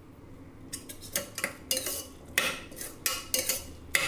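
Steel spoon stirring a wet chutney, onion and tomato mixture in a stainless steel bowl, clanking and scraping against the sides in a quick, irregular run of strokes that starts about a second in.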